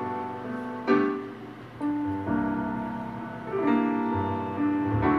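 Slow keyboard chords, held and changing every second or so, heard through a TV speaker.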